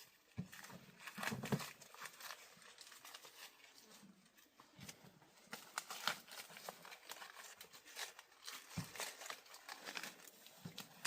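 Dry corn leaves and husks rustling and crackling in irregular, faint crackles as corn is harvested by hand.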